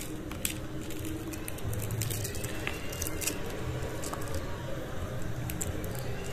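Crisp deep-fried sabudana and raw-potato pakora being pulled apart by hand: a few faint crackles of the crunchy crust and soft squishes of the soft inside, over a steady low hum.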